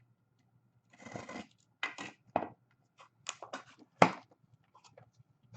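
Hockey trading cards and their packaging being handled: a short tearing rustle about a second in, then scattered clicks and scrapes of cards sliding, with one sharp knock about four seconds in, the loudest sound.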